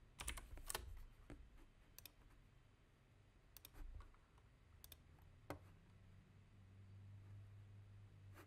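Faint clicks of a computer keyboard and mouse: a few quick keystrokes in the first second, then single clicks every second or so. A faint low hum comes in about halfway through.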